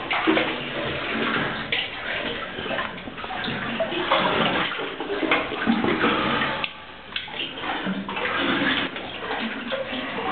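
Water splashing and sloshing in irregular surges as a caver moves through a flooded cave sump, with a brief lull about seven seconds in.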